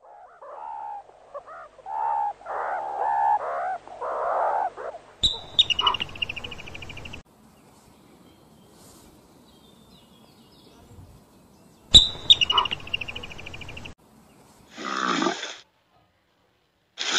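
A run of short animal calls. Varied squeaky chirps come first, then twice a sharp click followed by a rapid trilling chirp, and near the end a short low grunt.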